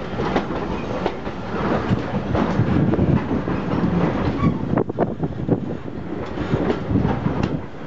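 Heritage railway train running along the track: a steady rumble with irregular clicks of the wheels over the rail joints.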